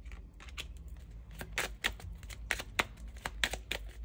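A deck of Kipper cards being shuffled and handled by hand: a quick, uneven run of soft card flicks and snaps, with sharper clicks in the second half.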